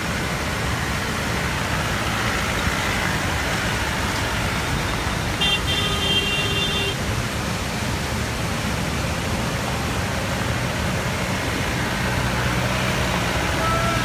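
Diesel engine of a DI Turbo jeep driving slowly over a gravel road against the steady rush of a waterfall, growing louder near the end as the jeep comes close. A horn sounds once for about a second and a half about halfway through.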